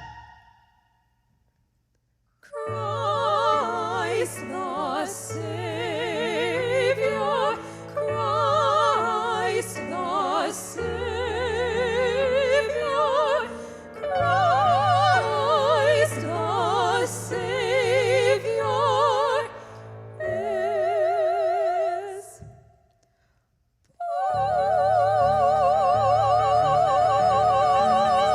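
Classical-style solo singing with strong vibrato over a sustained low accompaniment. The phrases are broken by two short silences, one soon after the start and one about three-quarters through.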